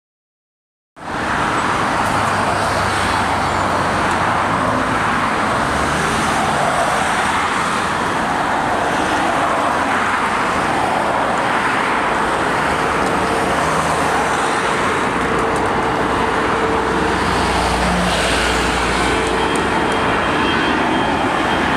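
Airbus A340-313's four CFM56 jet engines at climb power as it climbs out after takeoff: a loud, steady roar that starts suddenly about a second in.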